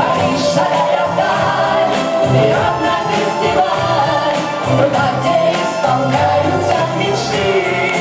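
A pop song sung live into handheld microphones over a backing track.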